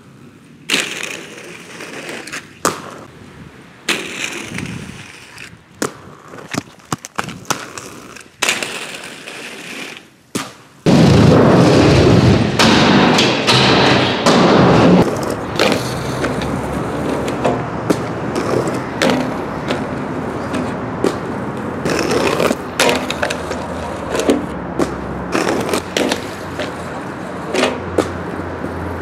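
Aggressive inline skates rolling and grinding, with sharp clacks and knocks from landings and rail contact. About a third of the way in, this gives way to a louder, continuous rolling rumble with a steady low hum underneath and more clacks over it.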